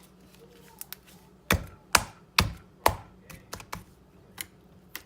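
A run of sharp clicks and taps from hands handling things: four loud ones about half a second apart in the middle, then several lighter ones.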